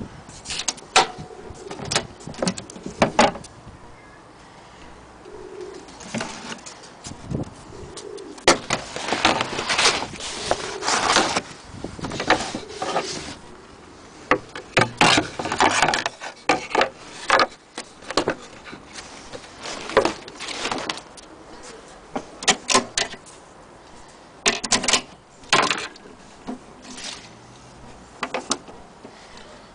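Irregular knocks, taps and rustles from objects being handled and moved, in scattered clusters, with a pigeon cooing in the background.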